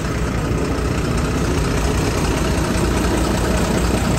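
City bus engine idling close by, a steady low rumble.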